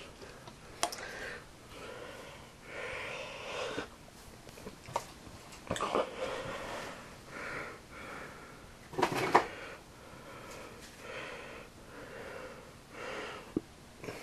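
A person breathing in and out, about a breath every second or so, with a few sharp knocks of handling noise; the loudest knock comes about nine seconds in.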